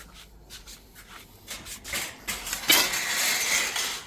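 Rubbing and scraping as the crab scoops are handled, faint and scattered at first, then louder for the last second or so.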